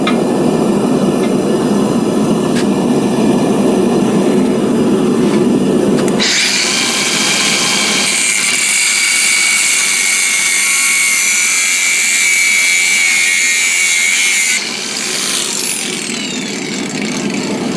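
A steady rushing from the forge for about six seconds. Then a power grinder's abrasive cut-off wheel cuts steel round bar with a high whine and hiss for about eight seconds, stops suddenly, and winds down with a falling whine.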